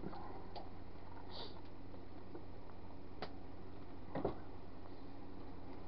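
Quiet room tone with a steady low hum and a few faint scattered clicks, the loudest a soft tap about four seconds in.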